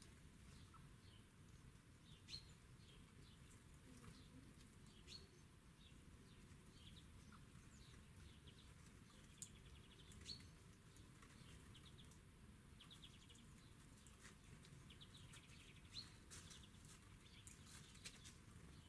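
Small wild birds calling faintly: short, scattered chirps and sharp ticks, a few every second or two, over a low, steady background hum.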